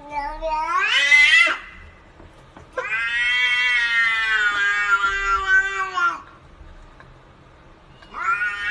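Domestic cat meowing: a short call rising in pitch, then a long drawn-out call of about three seconds, and another call beginning near the end.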